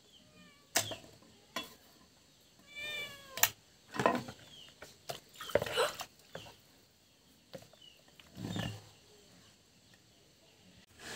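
Domestic cats meowing several times, with a few sharp knocks of a cleaver on a wooden chopping board and water splashing.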